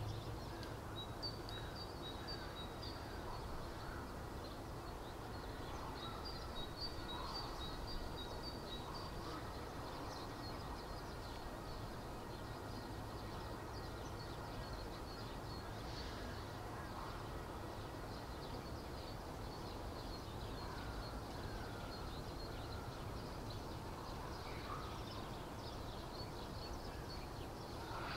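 Outdoor ambience: a steady low rumble with birds chirping throughout, busiest in the first nine seconds or so, and a few fainter, lower calls here and there.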